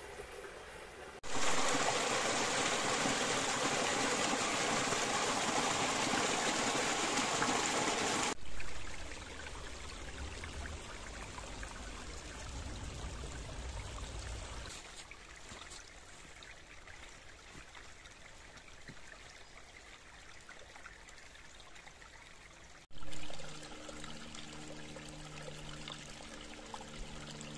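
Gorge stream rushing and splashing over rocks, heard in several takes at different loudness, loudest for the first several seconds. A steady low hum of a few tones joins near the end.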